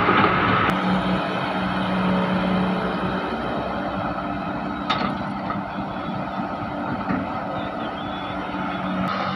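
Heavy diesel engine running at a steady speed, with a few short knocks, the clearest about five seconds in.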